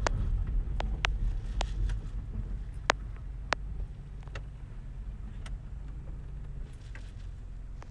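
Low rumble of a car heard from inside its cabin as it moves slowly, easing off about halfway through, with a few scattered light clicks.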